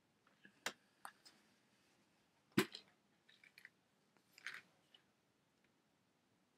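Scattered small clicks and taps from handling make-up, about half a dozen, the loudest a little over two and a half seconds in.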